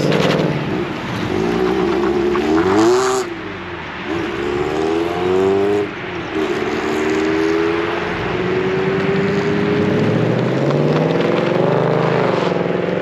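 Ford Mustang pulling out and accelerating away, its engine revving up and dropping back several times as it shifts through the gears.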